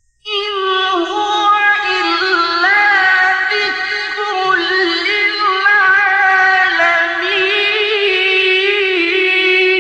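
A man's voice reciting the Quran in the ornamented mujawwad style: one long melismatic phrase, the pitch wavering and turning, held for about nine and a half seconds after starting suddenly out of silence.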